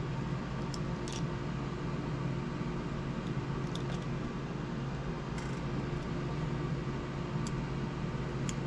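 Steady mechanical hum in a small room, with a handful of light clicks from tools and small hardware being handled.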